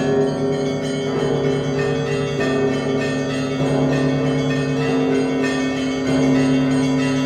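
Russian Orthodox church bells rung in a festal peal: a heavier bell is struck about every second and a quarter over a fast, steady pattern of smaller bells, all ringing on into one another.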